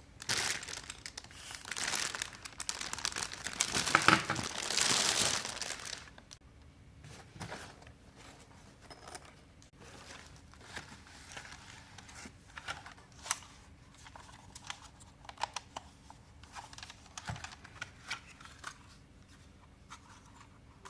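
Plastic packaging crinkling and tearing as a quadcopter is unboxed, loudest over the first six seconds. It then gives way to quieter scattered clicks and rustles of handling.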